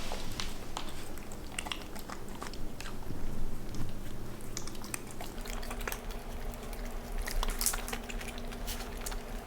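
A dog chewing and crunching anchovy, with a string of short, irregular crunches and clicks of the jaws.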